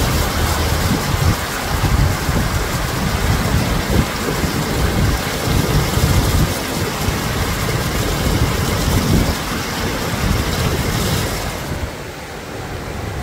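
Heavy truck driving through deep floodwater: a low engine rumble under a continuous rush of water thrown up by its wheels. Near the end this eases to the steadier sound of floodwater running across the road.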